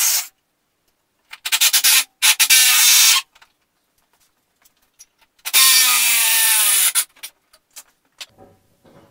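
Hand-held power tool run in three short bursts of about a second each, the last one slightly longer with its motor pitch sagging as it runs, followed by a few light clicks of handling.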